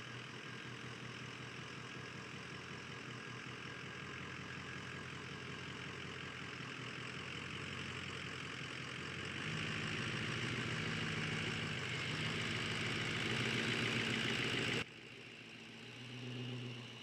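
Vehicle engine running as it pulls out and drives off, with a steady hiss of road noise over the engine hum. It gets louder about halfway through, then drops away suddenly near the end to a quieter hum.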